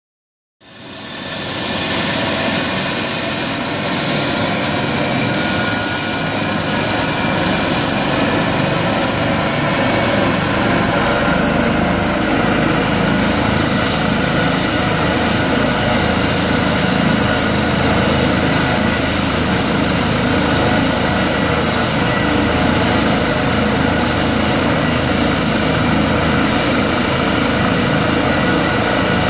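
Eurocopter EC135 rescue helicopter running steadily on the ground: the twin turbine engines and rotor make a loud, even whine with several steady tones. It fades in over the first couple of seconds.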